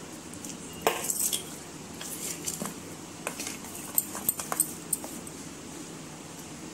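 Steel spoon clinking and scraping against stainless-steel bowls as cake batter is spooned from a mixing bowl into a small steel bowl: scattered light clinks, one to three a second.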